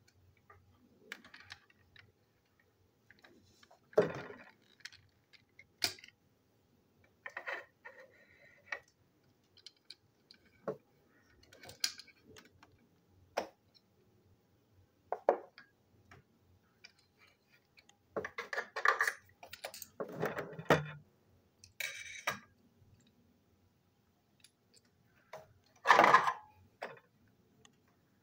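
A plastic toy diesel locomotive being handled and taken apart on a hard desk: irregular clicks, knocks and rattles of plastic parts, with louder handling clusters about four seconds in, around eighteen to twenty-one seconds and near the end.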